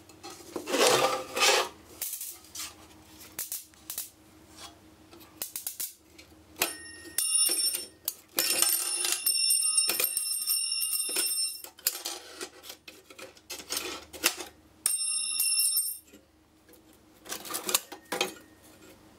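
Sheet-steel instrument chassis clattering and knocking as it is tipped and shifted on a steel workbench, with spells of bell-like metallic ringing and scraping. Near the end a circuit card rattles as it is worked out of its card rack.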